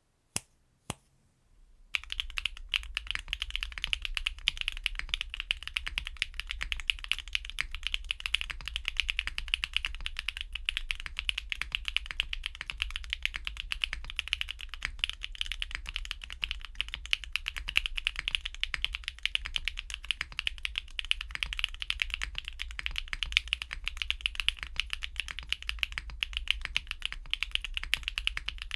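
Continuous typing on a custom top-mount mechanical keyboard, a Derivative Velvet WKL with a polypropylene plate, lubed Gateron CM switches and KKB Darling keycaps. Two single keystrokes come in the first second, then steady, fast typing starts about two seconds in.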